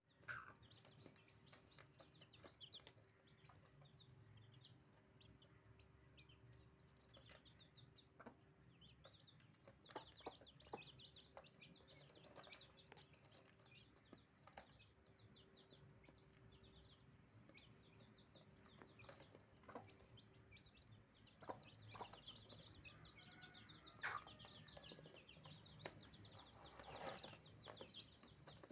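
Faint, rapid high peeping of newly hatched chicks, with a broody country hen clucking low now and then.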